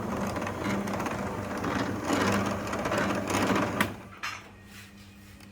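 An electric machine running with a steady hum and a busy rattle, then stopping with a click about four seconds in.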